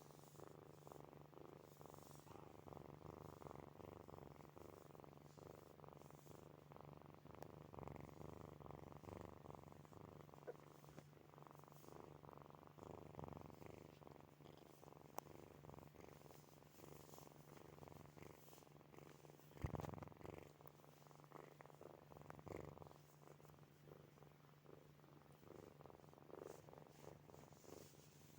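Sleeping kitten purring quietly and continuously in rapid fine pulses, close to the microphone. A single soft thump about two-thirds of the way through.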